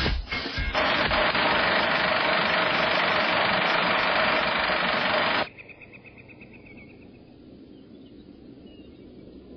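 A loud, steady rushing and rattling noise effect under a film-strip title graphic, with a steady hum-like band in it. It cuts off abruptly about halfway through, giving way to faint, quiet background ambience.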